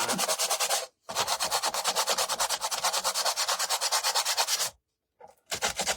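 Fine sanding block scrubbed back and forth in fast, even strokes, in three runs with short pauses about a second in and near the end.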